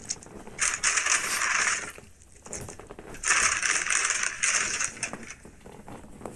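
Paper takeout bag and foil sandwich wrappers crinkling as wrapped food is pulled out of the bag, in two spells of crinkling, each a second or two long.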